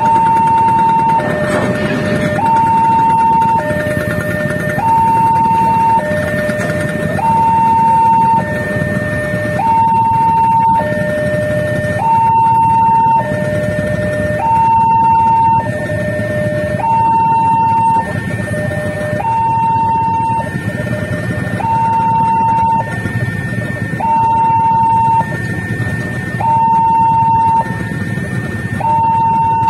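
Railway level-crossing warning alarm sounding a repeating high-low two-tone signal, each tone lasting a little over a second. Beneath it is the low rumble of idling motorcycle and car engines in the queue.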